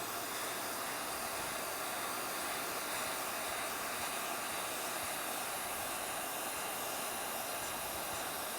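Hand-held hot-air welding gun blowing a steady hiss while heat-welding the seams of a thermoplastic roofing membrane pipe flashing.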